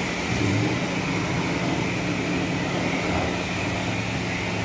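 Pressure-washer wand spraying water onto a pickup's body in a car wash bay: a steady hiss of spray over a steady low hum.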